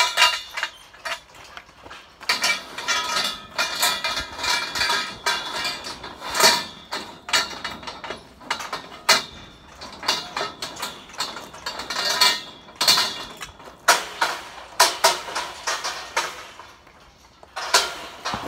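Steel scaffolding being taken apart: repeated sharp metal knocks and clanks, the pipes ringing after the strikes. The knocks come thick and fast and thin out near the end.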